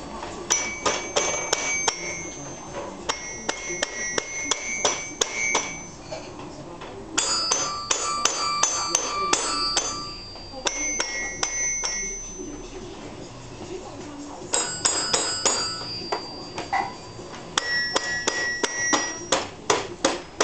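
Toy xylophone piano struck by a baby's hands: bursts of quick, uneven strikes, each note ringing at high pitch like a little bell, with short pauses between the runs.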